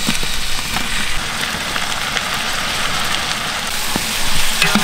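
Hot oil sizzling steadily in a large pot of frying onions as sliced tomatoes are tipped in, with a few light knocks.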